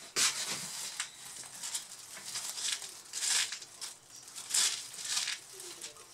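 Handling noises from small parts on a workbench: several short scraping and rustling sounds, the loudest about three and four and a half seconds in, as screws and the laptop's plastic case are handled.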